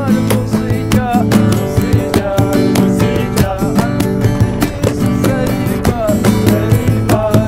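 Background music: a plucked-string tune over a steady beat.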